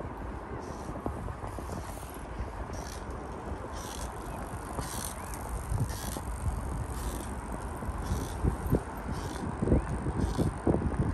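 Riding a Giant Liv Thrive hybrid bicycle along a paved path: steady rushing of wind and tyres, with a short soft hiss about once a second. Heavier gusts and low thumps come in the last few seconds.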